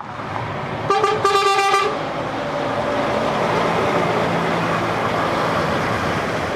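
A container tractor-trailer driving past, its engine and tyre noise swelling and then holding steady. A horn sounds once about a second in, for about a second.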